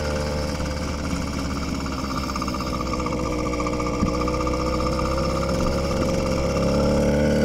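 Small two-stroke motorized-bicycle engine running steadily under way at about 4,700 to 5,000 rpm, its pitch and loudness rising slightly near the end.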